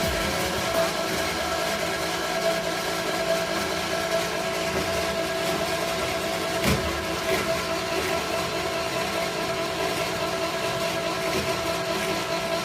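Lift winch machine running with a steady hum and whine, the faulty running noise that the machine has developed, with a single sharp knock about two-thirds of the way through.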